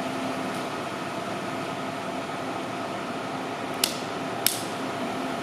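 Hardinge HC chucker turret lathe running under power with its electronic cross feed engaged: a steady mechanical hum with a faint whine. Two sharp clicks come near the end, about half a second apart.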